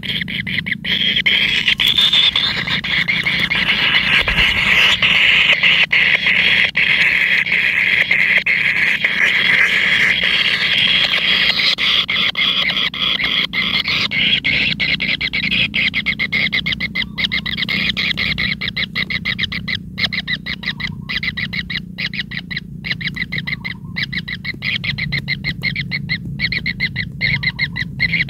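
Kingfisher nestlings calling continuously in their burrow nest: a loud, high-pitched buzzing chorus of begging calls. About halfway through it breaks up into rapid pulses, many a second.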